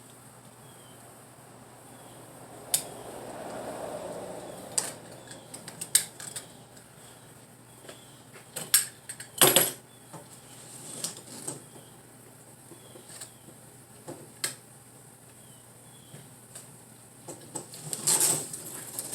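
Scattered clicks and taps with a short scraping stretch about three to four seconds in, as a razor knife trims the excess screen mesh along the inside edge of a window screen frame. A louder click comes about halfway through.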